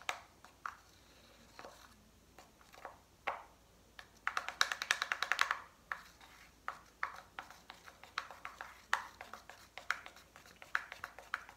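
A plastic spoon stirring thick homemade slime in a plastic cup: irregular sticky clicks and taps of the spoon against the cup, with a fast run of clicks about four seconds in.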